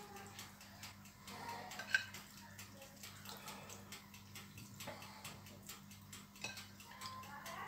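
Faint rustling and light ticks of sliced onion being scattered by hand over a pizza in a baking pan, with one sharper click about two seconds in, over a low steady hum.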